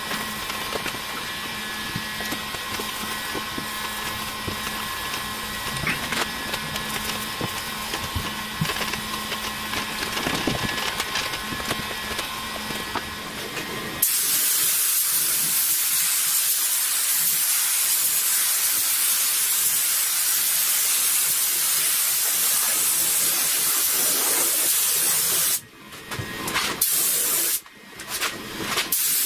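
Air spray gun spraying epoxy primer onto a bare steel car hood: a loud steady hiss comes in suddenly about halfway through. Near the end it breaks into a few short bursts as the trigger is pulled and released. Before the spraying, a quieter steady hum with faint rubbing of a rag wiping the metal.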